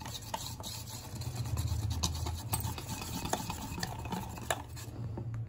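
Wire whisk beating thick gram-flour batter in a steel bowl: wet stirring with scattered light clicks of the wires against the bowl. A low steady hum runs underneath.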